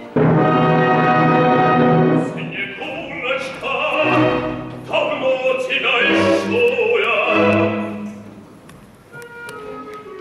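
Opera with orchestra: a loud held orchestral chord for about two seconds, then a baritone sings several phrases over the orchestra, the music thinning to quiet scattered orchestral notes near the end.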